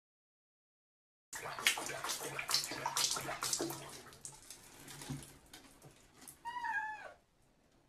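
Water sloshing and splashing in a small tub with a cat sitting in it, starting about a second in and dying down, then one short meow near the end.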